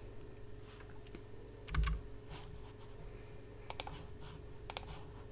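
Computer keys clicking a few times over a faint steady hum: a soft click with a low thump about two seconds in, then sharp double clicks near four and five seconds.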